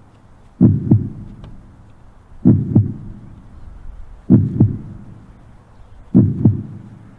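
Slow heartbeat sound effect: four pairs of low double thumps, lub-dub, about every two seconds.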